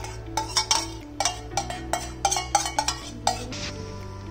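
Background music: sustained bass notes shifting every second or so under a quick, steady run of percussive hits.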